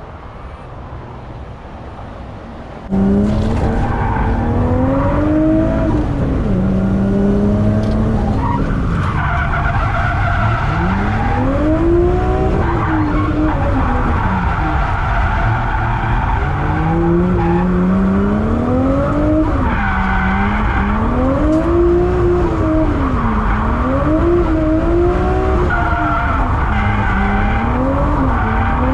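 Nissan Skyline R32 drift car's engine, heard from inside the cabin, revving up and falling back again and again through a drift, with tyres squealing. Before it, about three seconds of quieter, even background sound.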